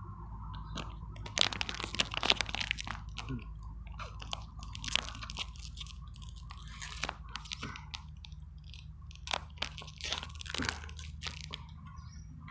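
Ice-cream bar wrapper being handled and torn open: irregular crinkling and crackling, loudest in a cluster about a second and a half in and again around ten seconds.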